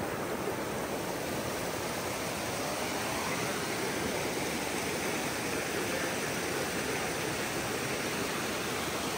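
Remakri Falls' wide cascade rushing steadily: an even wash of falling water that never changes.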